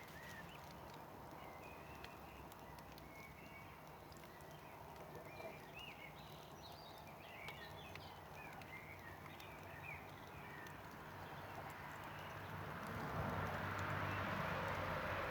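Campfire burning with faint scattered crackles and pops, small birds chirping in the background. A rushing noise swells up near the end.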